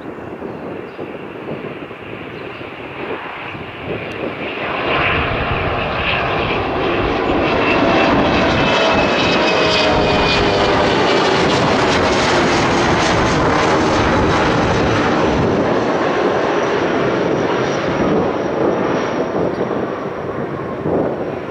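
Airbus A300-600 twin-engine jet freighter passing, its engine noise swelling over several seconds and then slowly fading, with whining tones that slide down in pitch as it goes by.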